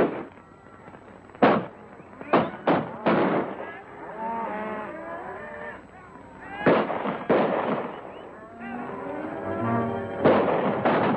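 A volley of film gunshots, about nine sharp shots, irregular and some with a ringing tail, with wavering calls between them. Orchestral soundtrack music comes in about eight and a half seconds in.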